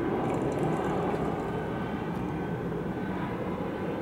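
Twin-engine jet airliner on final approach with its landing gear down, passing low overhead: a steady jet engine rumble.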